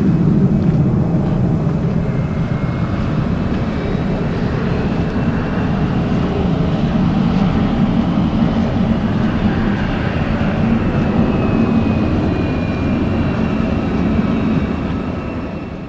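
Airbus A321's jet engines heard from a distance as it moves along the runway: a steady low rumble with a faint high whine. It fades out near the end.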